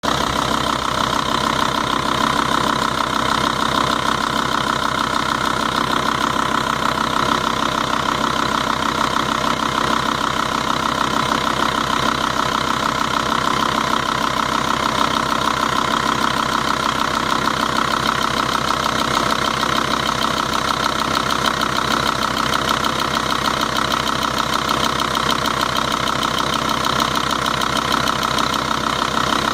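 Volvo-Audi 2.5 TDI five-cylinder diesel engine idling steadily, with a fast, even ticking in time with the running. The owner does not know its cause.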